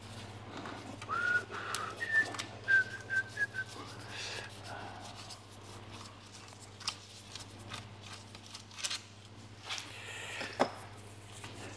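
A person whistling a few short notes, over a steady low hum, with a few light clicks of handling later on.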